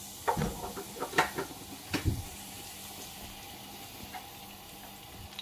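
A few sharp clicks and two dull knocks in the first two seconds, from handling at the gas hob and the pot, then only a faint steady hum.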